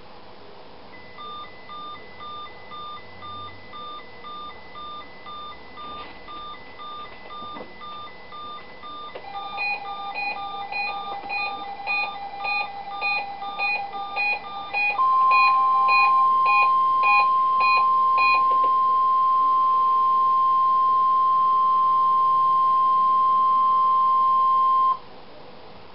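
Weather-alert receivers going off for a NOAA Weather Radio weekly test. A RadioShack Pro-197 scanner starts a quiet, even alert beeping about a second in, having triggered on the first SAME data burst; about nine seconds in, louder beeping from two other weather radios joins it. About fifteen seconds in, the loud, steady 1050 Hz NOAA warning alarm tone comes on, holds for about ten seconds and cuts off sharply.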